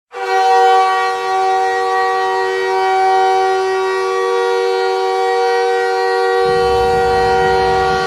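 Montreal Canadiens arena goal horn sounding a loud, steady chord of several held tones, signalling a goal. It starts abruptly and holds unbroken, and a low rumble joins underneath about six seconds in.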